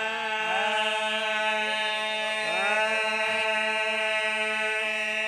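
A steady chant-like drone held on one pitch, with notes sliding up into it several times.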